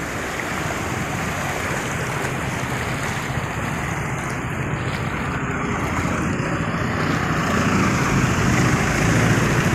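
Vehicles driving through shallow street floodwater: steady rushing and splashing water mixed with engine noise. A low engine hum gets a little louder near the end.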